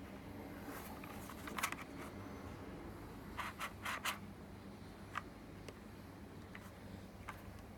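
Scattered light clicks, knocks and scrapes of the pressure washer's spray gun and parts being handled, a cluster of them about three to four seconds in, over a low steady hum.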